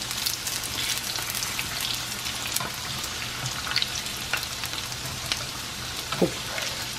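Egg rolls deep-frying in vegetable oil at medium-high heat: a steady crackling sizzle with scattered pops. A few light knocks of metal tongs as the rolls are turned over.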